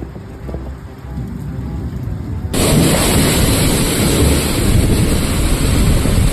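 Rainstorm with a low rumble; about two and a half seconds in it cuts abruptly to a much louder, even hiss of heavy rain.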